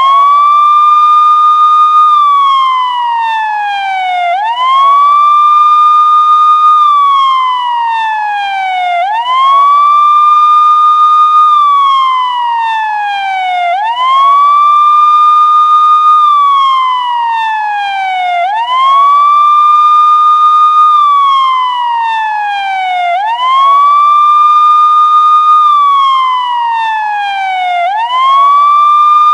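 Police siren wailing. Each cycle rises quickly to its high note, holds it for about two seconds, then falls slowly, repeating about every four and a half seconds.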